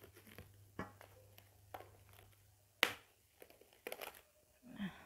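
Plastic cling film crinkling and crackling as it is wrapped tightly around a ball of dough, in scattered small crackles with a sharper snap about three seconds in.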